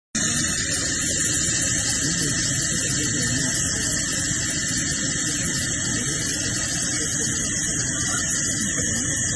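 Aircraft turbine running steadily: a constant high-pitched whine over a broad rushing noise.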